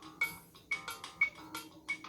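Sony Ericsson W300i ringtone playing: a quick melody of short, struck percussive notes, about three a second.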